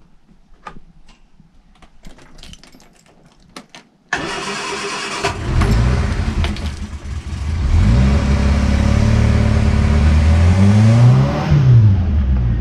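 Freeman 23 river cruiser's inboard engine starting about four seconds in, with the choke out, on its first start after winter lay-up. It catches and runs, then is revved up and down with the throttle, its pitch rising and falling. Before the start there are only a few light clicks and knocks.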